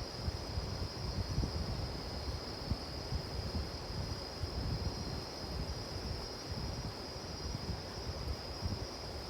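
Outdoor campfire ambience: an uneven low rumble of wind and flames, with a steady high-pitched insect trill over it and no distinct crackles.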